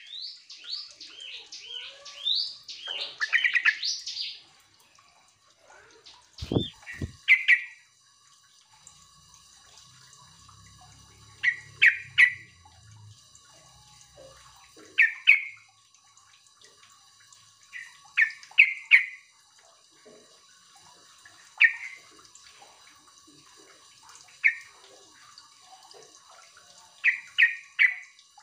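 Yellow-vented bulbul singing a quick burst of warbling, sweeping notes for the first few seconds, then giving short sharp call notes every few seconds, some in quick pairs or triples. Two low thumps come about six and a half seconds in.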